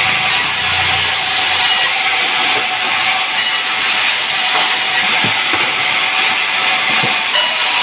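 Sawmill saw cutting sengon (albizia) timber: a loud, steady, hissing whine that carries on without a break.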